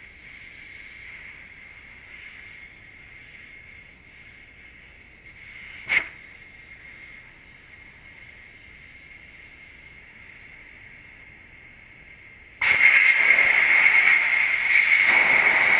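Air hissing out of a motorcycle tyre through the open valve stem as the tyre is deflated, at first a faint steady hiss with a sharp click about six seconds in. Near the end the hiss jumps suddenly to a loud rush as the valve core comes free and the air blows out unrestricted.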